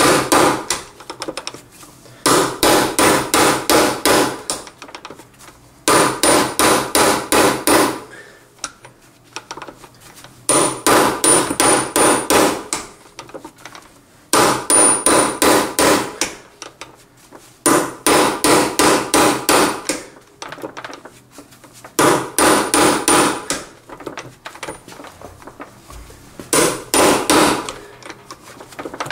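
Rapid hammer blows on the steel shafts of a Toyota Corolla manual gearbox's gear pack, tapping the pack down into place. They come in about seven bursts of roughly five blows a second, each burst about two seconds long with short pauses between, and every blow rings like metal.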